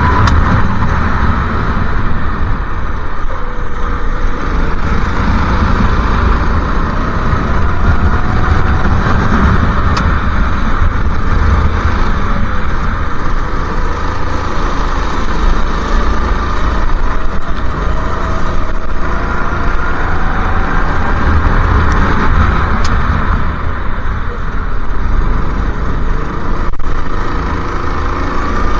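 Go-kart engine heard from a camera mounted on the kart, its pitch rising and falling with the throttle through the laps' corners and straights. A heavy, steady low rumble of wind on the microphone lies under it throughout.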